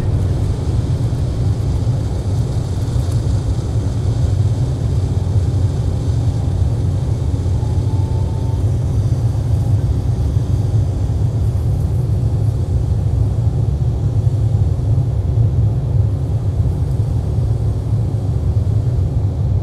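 Jet airliner cabin noise during the climb just after takeoff: the engines give a loud, steady low rumble. A faint short rising tone comes about eight seconds in.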